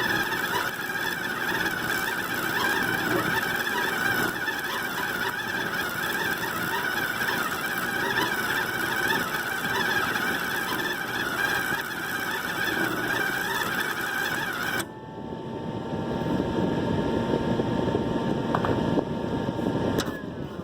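Harbor Freight wire-feed welder's arc crackling steadily for about fifteen seconds, then cutting off suddenly as the weld stops. A lower, rougher noise follows for the last few seconds.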